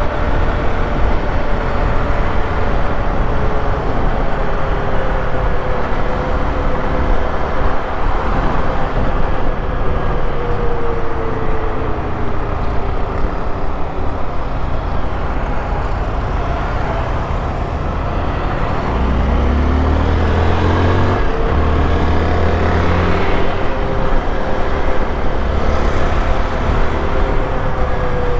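Honda XRE 190 motorcycle's single-cylinder engine running on a ride through traffic, under steady road noise. The engine pitch slowly falls through the first half, then climbs again past the middle as it picks up speed.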